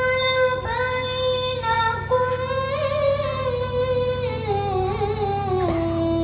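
A child's voice chanting Quran recitation in the melodic tilawah style, drawing out one long ornamented phrase without a break. The pitch holds high, then steps down to a lower sustained note near the end.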